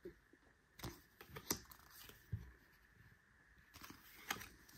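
A few separate light clicks and taps of cards and cardboard album packaging being handled, the sharpest about a second and a half in.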